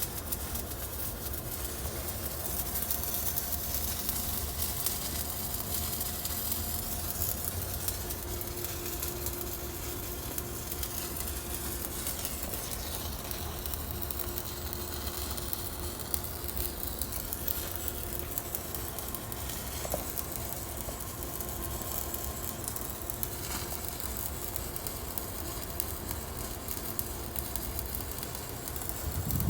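Stick-welding arc crackling and sizzling steadily, without a break, as the electrode burns.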